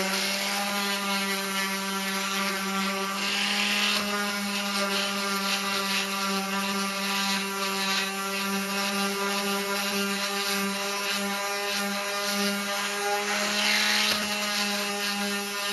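Electric orbital sander running steadily on a wooden board, a constant motor hum with the hiss of abrasive paper, used to sand off burn marks and saw marks.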